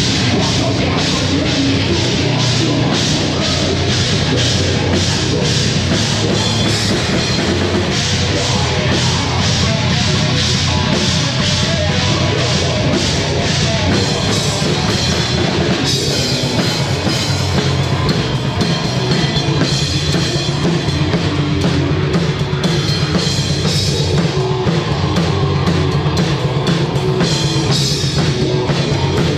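Heavy rock band playing live and loud: electric guitars over a drum kit, with fast, even drum and cymbal hits.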